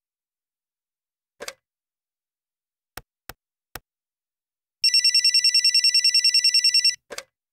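Desk telephone in use: the handset lifts off with a clack, then three keypad buttons click. An electronic ringer trills rapidly for about two seconds and stops with a clatter as the receiver is picked up at the other end.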